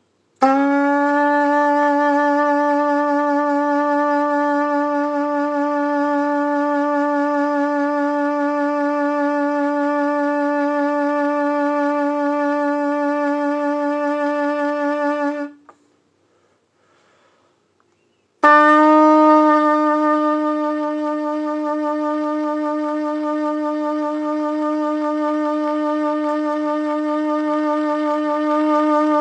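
Trumpet with its main tuning slide pulled out, held as long tones in an endurance exercise. A single note is sustained for about fifteen seconds and stops; after a pause of about three seconds a second, slightly higher note starts and is held.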